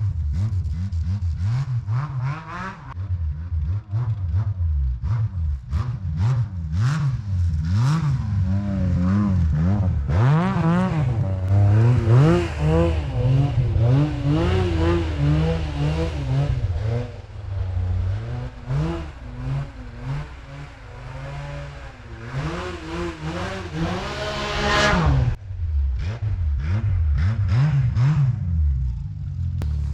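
Arctic Cat XF7000 snowmobile's four-stroke triple engine running just after a cold start, being revved up and down again and again while it warms up. About 24 seconds in it revs in one long climb, then drops sharply back to idle.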